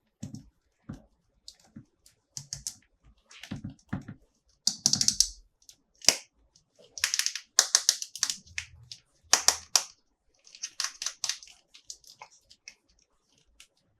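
Hands handling plastic toys and packaging: irregular clicks, taps and short crinkly rustles, with the loudest bursts in the middle.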